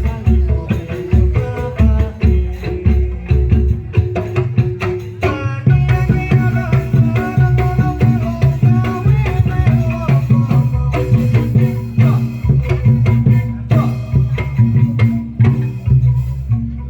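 Upbeat dance music with busy drum and hand-percussion strokes, heavy bass and a melodic lead line. About five seconds in the pattern shifts to a fuller sustained bass and melody, and the music drops away at the very end.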